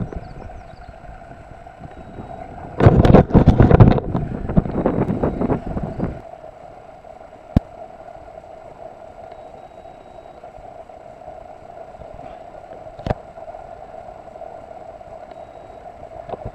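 Wind buffeting a handheld camera's microphone in loud gusts for about three seconds, then a steady low hum with two short clicks.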